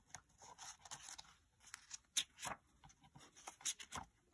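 Faint rustling and light, scattered clicks of a picture book's paper pages being handled.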